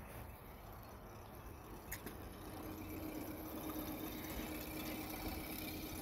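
Faint burbling and splashing of water in a test barrel around the lower unit of a 2010 Suzuki 9.9 hp four-stroke outboard, growing louder from about halfway in, with a faint steady hum under it.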